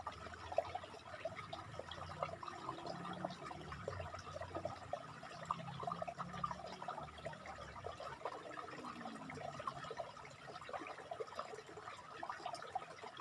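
Scissors cutting through a yarn pompom: a dense run of small crisp snips and fibre crunches.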